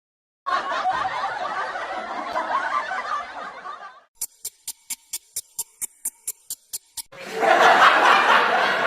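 Studio audience laughing for a few seconds, then a rapid, even run of short pulses, about four or five a second, for nearly three seconds. A louder burst of crowd laughter starts near the end.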